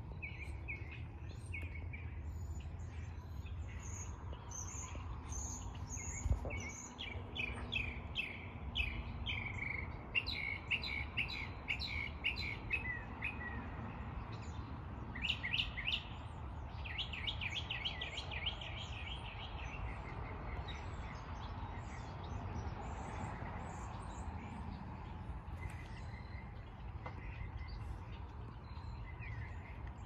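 Small songbirds singing and chirping in quick series of repeated high notes, over a steady low rumble, with a single thump about six seconds in.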